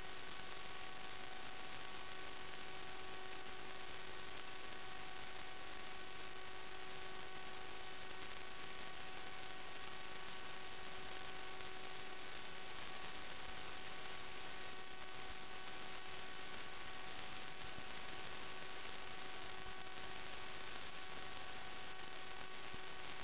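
Steady electronic hiss with a few faint constant tones and a hum under it: static on the audio channel of an analog FPV video link, with no change throughout.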